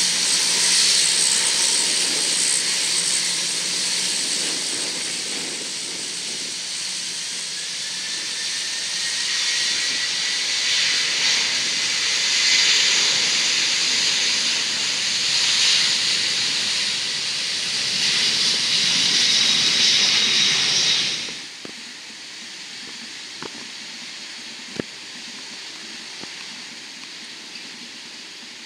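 Lockheed C-130H Hercules's four Allison T56 turboprop engines running at taxi power: a loud, steady hiss and whine, with a faint rising tone partway through. It cuts off suddenly about three-quarters of the way in, leaving a much quieter background with a couple of small clicks.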